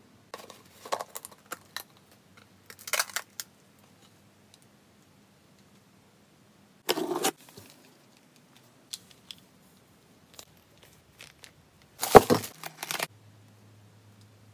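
Small hard objects clattering and rattling as they are handled, in short bursts: a cluster in the first two seconds, another about three seconds in, one about seven seconds in, and the loudest near the end.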